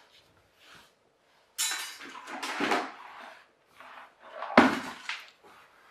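Hard household objects being handled and moved about, clattering and knocking in two bouts, the second opening with a sharp knock.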